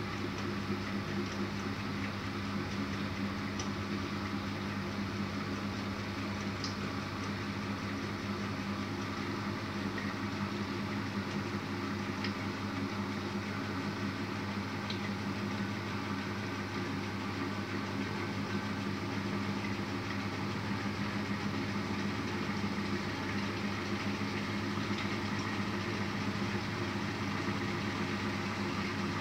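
Miele W 2597 front-loading washing machine spinning its drum during intermediate spin, the motor running with a steady hum that holds its pitch. A few faint clicks sound from inside the drum.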